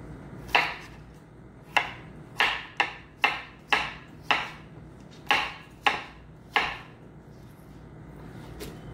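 Chef's knife cutting through a cucumber and striking a wooden cutting board: about ten sharp chops at an uneven pace, roughly one every half second to second, stopping a little past halfway.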